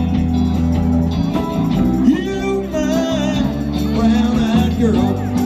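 Live band playing music.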